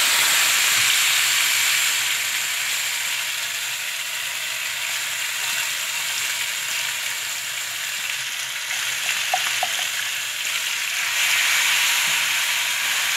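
Ground spinach paste frying in hot ghee in a non-stick frying pan, a steady sizzle as the water in the wet paste cooks off, while a silicone spatula stirs it. The sizzle swells again near the end.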